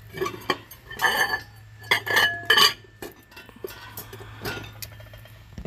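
Serving bowls clinking and rattling against each other as they are handled on a shelf, in several bursts over the first three seconds, one with a brief ringing tone.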